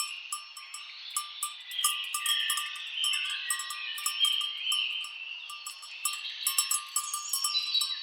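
Bells on grazing cattle clanking irregularly, over a continuous high-pitched chorus.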